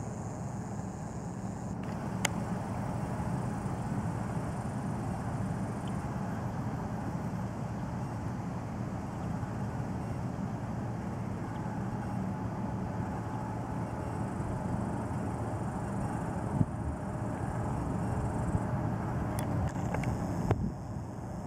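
Cargo ship's diesel engine running with a steady low rumble as the vessel moves slowly into the lock, with a few brief clicks.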